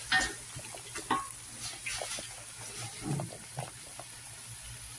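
Wooden spatula stirring and scraping onion and spice masala frying in oil in a large aluminium pot, with a faint sizzle and irregular knocks of the spatula against the pot: the spices being fried (bhuna) in the masala.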